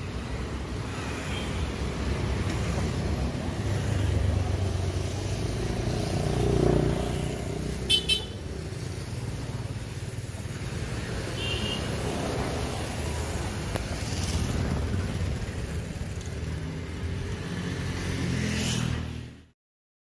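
Road traffic passing close by, with vehicles swelling past. A vehicle horn gives a quick double beep about eight seconds in. The sound stops abruptly shortly before the end.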